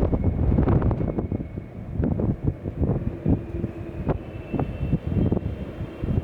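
Jet airliner engines rumbling over gusty wind buffeting the microphone, with a faint steady whine above the rumble.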